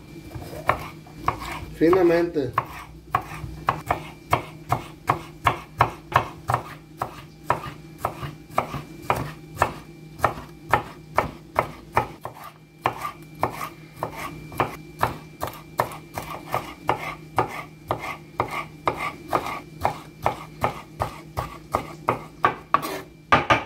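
Chef's knife finely dicing bell peppers on a wooden cutting board: a steady run of chops, about two to three a second.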